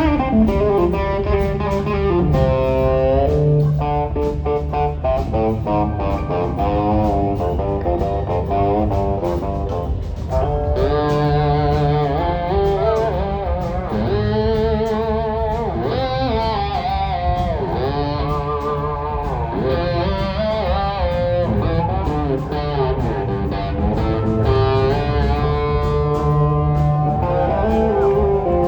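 Live blues-rock band with drums and bass under an electric guitar lead. The guitar plays quick runs at first, then from about ten seconds in switches to long, bending notes with wide vibrato.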